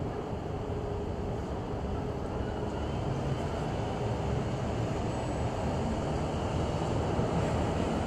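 Steady low rumbling background noise with no speech, slightly louder toward the end.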